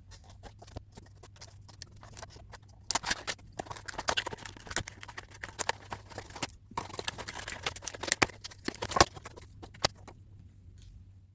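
Stiff clear plastic packaging being handled and cut: irregular clicks, snips and crackles, sparse at first and busy from about three seconds in, with a brief pause past the middle.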